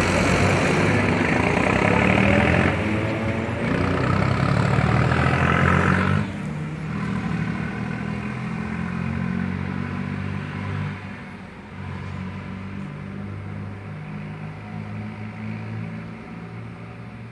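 Farm tractor engines running as they drive past, loud and close at first, then dropping abruptly about six seconds in to a quieter steady engine drone that fades toward the end.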